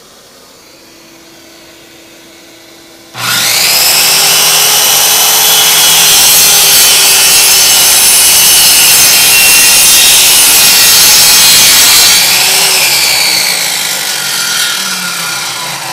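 Kobalt sliding compound miter saw (chop saw) starting suddenly about three seconds in and running loud as its blade cuts through an aluminum extrusion, a harsh high-pitched metal-cutting noise; it tapers off over the last few seconds. Before the saw starts, a shop vacuum runs with a steady hiss.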